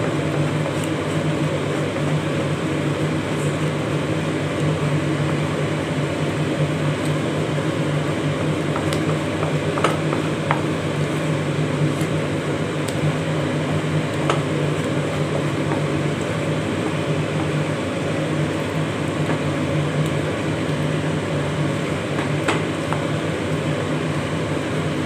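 A steady machine hum runs under the stirring of thick halwa in a non-stick pan, with a few faint clicks of the spatula against the pan.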